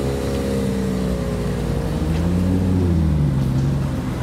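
Two-rotor rotary engine of a custom FD Mazda RX-7 idling, its pitch rising slightly about two seconds in and settling back about a second later.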